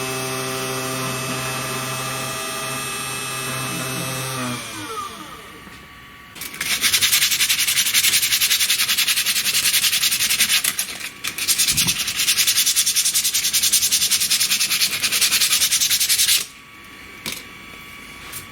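CNC router spindle motor running steadily with a hum, then switched off about four seconds in, its pitch falling as it spins down. After a short pause comes a loud, rough rubbing noise lasting about ten seconds that stops abruptly.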